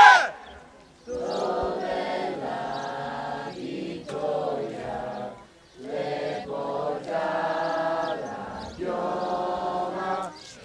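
A group of young voices singing a slow song together in long held phrases, with short breaks for breath; it begins about a second in, just after a shouted group cry stops.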